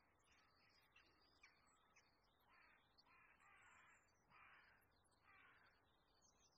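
Faint cawing of a crow: about four short caws, spaced less than a second apart, in the second half, with faint high bird chirps scattered throughout.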